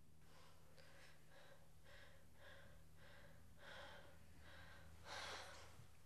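A woman's faint, quick, shaky breathing, about two breaths a second, with a deeper breath about five seconds in: panting on waking from a nightmare.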